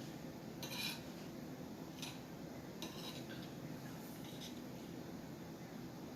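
An eating utensil clinking and scraping against a dish of beans and rice, about four short clicks spread over a few seconds, the sharpest under a second in.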